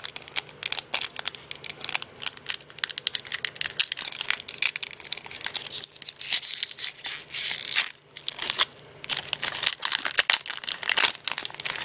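Yu-Gi-Oh trading-card booster pack wrapper being pulled open by hand, crinkling and tearing, with longer, louder rips about six to eight seconds in.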